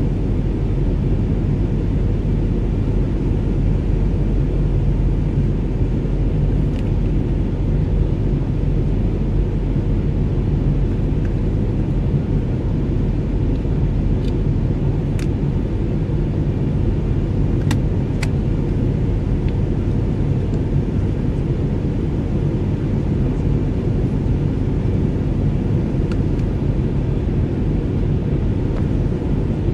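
Steady low rumble of cabin noise inside an Airbus A319 airliner in flight, with a few faint clicks around the middle.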